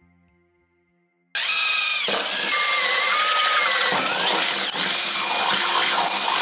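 A yellow-and-black cordless drill boring a new mounting hole through a snowmobile's aluminum tunnel. It starts about a second in and runs loud and steady, with a high whine that sags as the bit bites into the metal.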